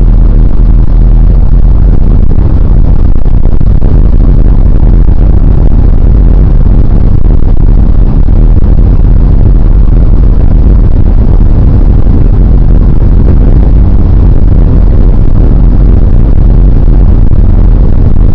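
Steady, loud rumble of a moving car's engine and road noise heard from inside the cabin.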